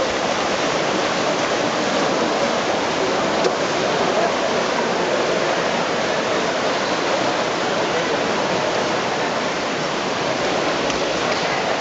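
Steady, loud wash of noise from a swimming race in an indoor pool: swimmers splashing through the water, mixed with crowd noise from the spectators.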